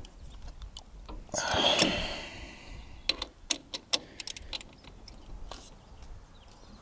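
Ratchet wrench clicking in short irregular runs while tightening an alternator mounting bolt. A louder brief rustling noise comes about a second and a half in.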